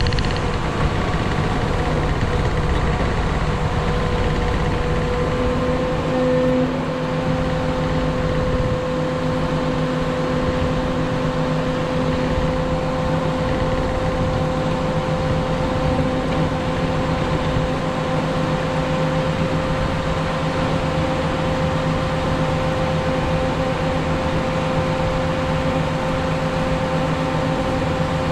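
Cat 140M3 motor grader's diesel engine and drivetrain running steadily under load, a constant drone with a steady whine, over the low rumble of the moldboard scraping and rolling gravel. A second, lower tone joins about six seconds in.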